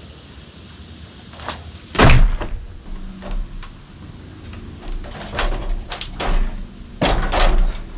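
A big spruce log being turned on a sawmill bed, giving a series of heavy wooden thumps and knocks as a protruding knot bangs against the side of the mill. The loudest thump comes about two seconds in, with a run of knocks near the end.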